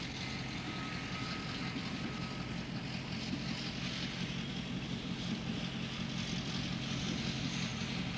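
Steady low locomotive engine rumble with a hiss over it, even throughout: the sound of the diesel that pushes the non-running steam locomotive.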